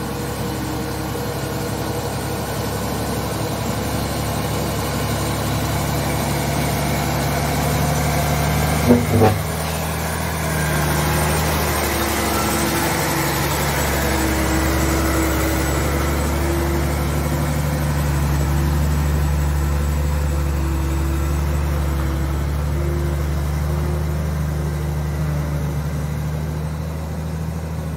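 Mitsubishi Fuso intercooler truck's diesel engine running steadily as the heavily loaded truck drives slowly past on a gravel road and pulls away. Its note changes briefly about ten seconds in, and two sharp clanks come just before that.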